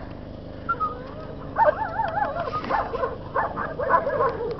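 Young German Shepherd puppy whining and yipping in a run of high, wavering cries, starting about a second and a half in, while it bites and pulls at a tug toy.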